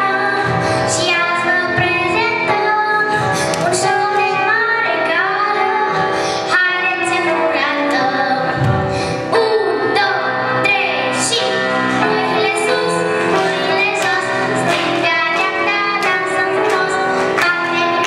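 A young girl singing a vocal piece into a microphone, accompanied on grand piano.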